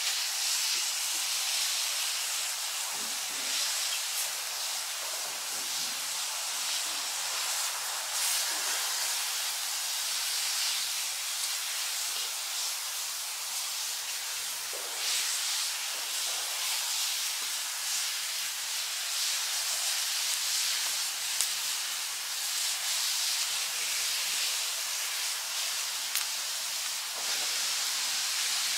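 Skirt steak, tofu and vegetables sizzling in skillets over a log fire, a steady hiss, with a few faint snaps from the burning wood.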